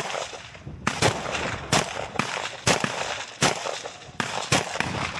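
Sustained gunfire: irregular sharp shots, often in quick pairs, coming roughly two or three a second, each trailed by a short echo.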